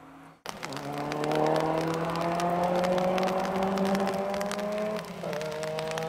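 Mitsubishi Lancer Evolution's turbocharged four-cylinder engine under hard acceleration, starting abruptly. Its pitch climbs steadily, drops briefly about five seconds in at an upshift, then climbs again.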